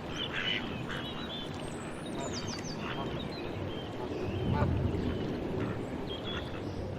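Several birds chirping and calling in short high notes over a steady outdoor background hiss, with a low rumble swelling briefly a little past halfway.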